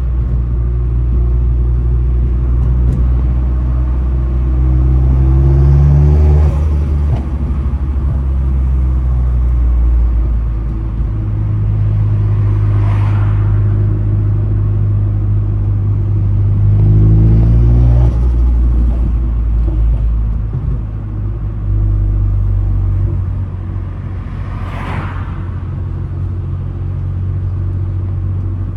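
Vauxhall Astra H VXR's 2.0-litre turbocharged four-cylinder engine pulling under load, its pitch rising and then dropping. About four times a short whooshing turbo flutter sounds as the throttle is lifted.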